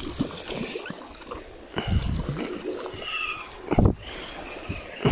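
Hooked trout splashing in the shallow stream water while being played on a spinning rod, mixed with close rustling and bumping of the camera against clothing. The strongest thumps come about four seconds in and again near the end.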